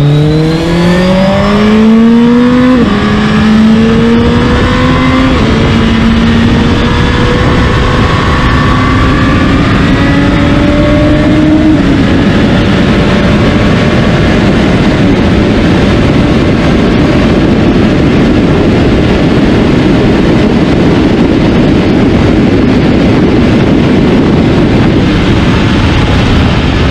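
Suzuki GSX1300R Hayabusa's inline-four engine at full throttle, heard on board. The revs climb and drop back with quick upshifts through the gears, about three of them in the first twelve seconds. It then pulls steadily at high speed in the top gears under a heavy rush of wind.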